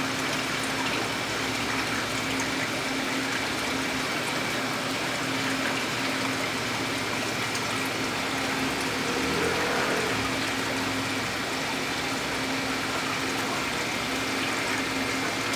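Aquarium filter running: a steady rush of moving water with a constant low pump hum.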